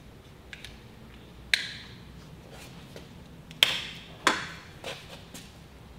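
Vice grips being handled and clamped onto a steel outboard driveshaft: a handful of sharp metal clicks and clinks, the loudest a little after a second and a half and about three and a half seconds in, each ringing on briefly.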